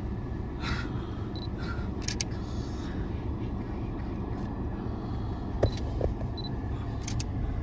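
Steady low rumble of a car, heard from inside the cabin, with a handful of sharp clicks, some in quick pairs.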